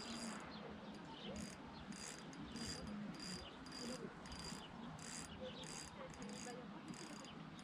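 Faint, evenly repeated high-pitched insect chirps, about one and a half a second, typical of a cricket or bush cricket.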